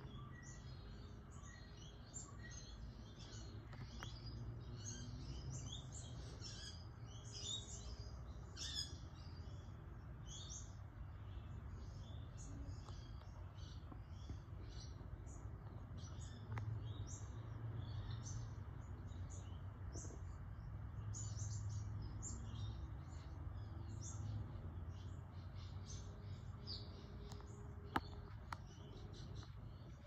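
GEC CS/78/Q 1400mm ceiling fan running, with a steady low motor hum and a continual, irregular patter of short high chirps over it. One sharp click near the end.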